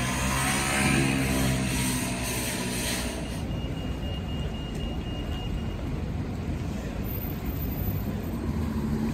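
A motorcycle engine passes close by, its note sliding in pitch as it goes. About three seconds in, the sound cuts to a steady low street-traffic rumble.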